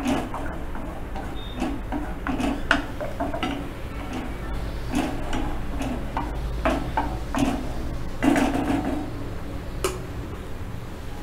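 Spoon stirring thin tomato sauce in a small metal pan, clicking and scraping irregularly against the pan's sides and bottom; the stirring stops about ten seconds in.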